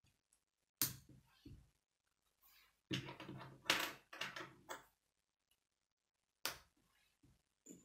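Plastic K'nex pieces clicking and clattering as they are snapped together and handled on a wooden table: a sharp snap about a second in, a busier stretch of clicking in the middle, and another sharp snap near the end.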